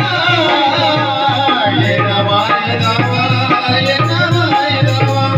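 Marathi song: a voice singing a long, wavering melodic line over a steady drum beat.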